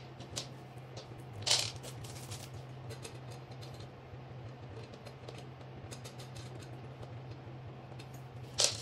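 Small metal hardware clicking and clinking as it is handled at a floorstanding speaker's base, with light ticks throughout and two sharper clinks, one about a second and a half in and one near the end. A steady low hum runs underneath.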